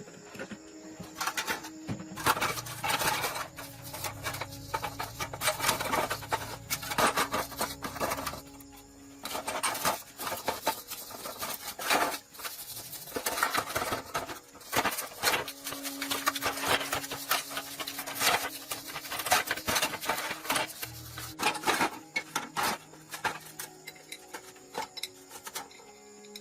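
Metal clinks, knocks and scraping from hand tools worked on steel truck driveshaft parts, with faint background music.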